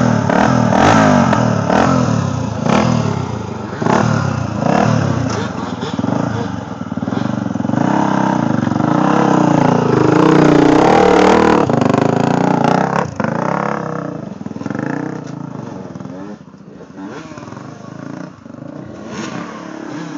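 Dirt bike engine revving hard close by, in repeated rising and falling bursts. About thirteen seconds in it drops back, leaving quieter, more distant engine revving.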